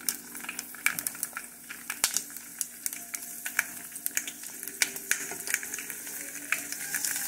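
Dried fish frying in hot oil in a pot: a steady sizzle with frequent sharp pops and crackles of spitting oil.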